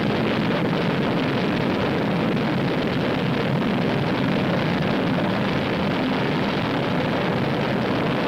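Agena upper stage's Bell XLR81 liquid-fuel rocket engine in a static test firing, running at full thrust with a steady, unbroken rushing noise.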